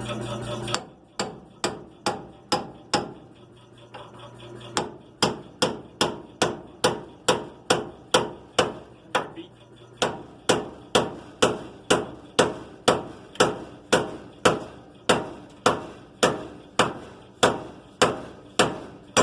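Hammer striking a manual pickle fork, driven between the ball joint and control arm of a 1961 Chrysler Windsor's front suspension to break the ball joint stud loose. The blows are sharp and metallic: a few at first, then after a short pause a long steady run at about two and a half blows a second. A steady hum cuts off about a second in.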